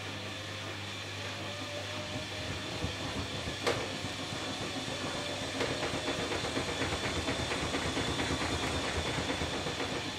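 Electrolux EWF9042R7WB front-loading washing machine ramping up its spin with a light load. There is one sharp knock a little under four seconds in. From about halfway the shaking drum knocks regularly, a few times a second.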